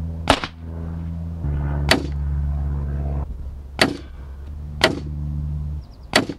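Air rifle pellets striking a steel Coke-bottle-shaped target: five sharp hits about one to two seconds apart. A steady low hum runs underneath, changing pitch in steps and dropping out twice.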